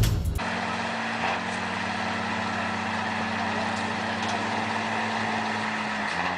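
Heavy vehicle engine running steadily with a low, even drone, its pitch dipping slightly near the end; the tail of loud background music cuts off just before it.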